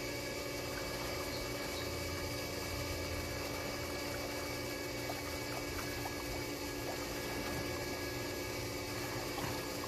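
Steady hum of a running motor with a few constant tones, over light splashing of water as people swim.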